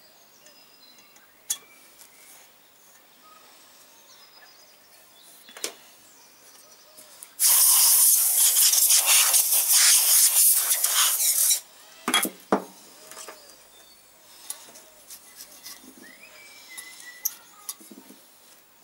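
Aerosol spray can sprayed through its straw nozzle into an engine cylinder bore: one steady hiss of about four seconds, starting about seven and a half seconds in and cutting off suddenly. Before and after it come a few faint clicks and small knocks of tools being handled.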